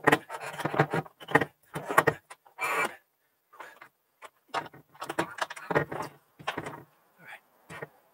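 Irregular knocks, scrapes and rattles of an aluminium-framed solar panel and its mounting hardware being handled and shifted on a trailer roof, with the man kneeling and moving about on it.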